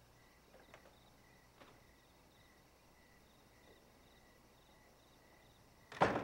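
Crickets chirping in an even, pulsing rhythm, with a few faint clicks. Near the end comes a loud, sudden thud of a heavy door being shut.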